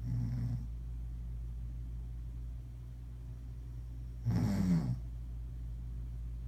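A woman snoring in her sleep: two short snores about four seconds apart, the second louder, over a steady low hum.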